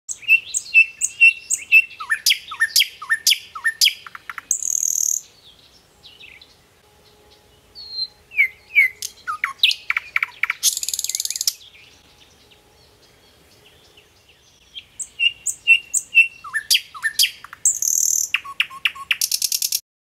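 Common nightingale singing: three loud, varied phrases of repeated whistled notes, quick down-slurred notes and dry rattling trills, with short pauses between them.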